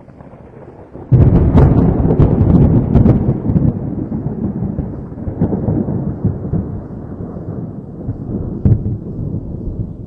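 A thunderclap: a sudden loud crack about a second in, crackling briefly, then rolling into a low rumble that slowly fades, with one more sharp crack near the end.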